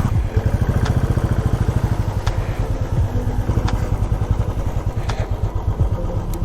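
Royal Enfield Classic 350's single-cylinder engine running steadily under way, its exhaust beats coming in a quick, even pulse. A light tick sounds about every second and a half.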